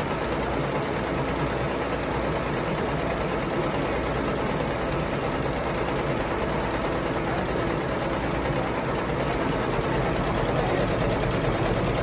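Barudan multi-needle commercial embroidery machine running, its needle stitching a design into a hooped garment at a steady pace.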